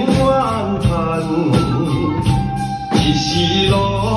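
A group of drum kits played by children, with drum and cymbal hits keeping a beat along to a song with a singing voice.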